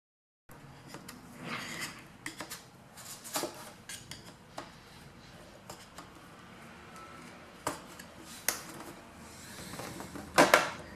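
Plastic clicks, scrapes and snaps as the plastic screen bezel of an Asus Q551L laptop is pried and pulled away from the back cover, with the loudest snaps near the end as the last clip lets go.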